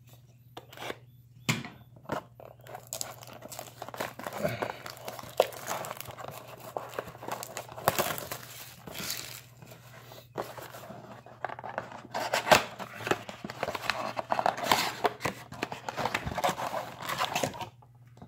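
Cardboard trading-card blaster box being torn open by hand, with irregular tearing, crinkling and sharp clicks, stopping shortly before the end. A steady low hum sits underneath.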